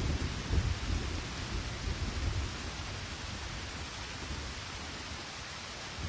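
Steady rain falling, with a low rumble of thunder that dies away over the first two or three seconds.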